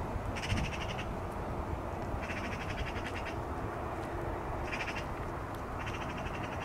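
Four short, rapid rattling calls from an animal, each about half a second to a second long, over a steady low rumble of wind.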